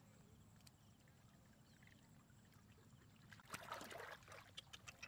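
Hands sloshing and splashing in shallow muddy water, starting about three and a half seconds in, with a few sharp splats.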